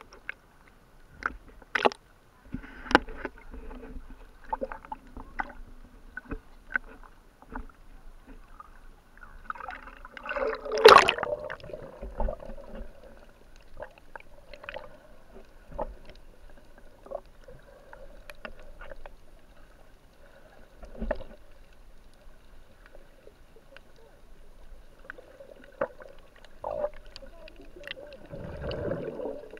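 Muffled underwater water noise heard through a waterproof camera housing, with scattered sharp clicks and bubbling. A louder rush of bubbles or splashing comes about eleven seconds in, and another swell of water noise near the end.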